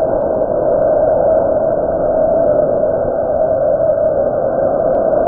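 Solid-fuel model rocket motor firing at liftoff, a loud steady roar that starts just before the rocket clears the pad and carries on without a break as it climbs away.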